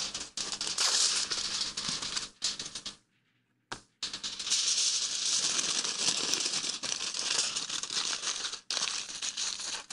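Aluminium foil being crumpled and squeezed in the hands into a small shape, a dense crinkling rattle. It stops for about a second roughly three seconds in, then carries on.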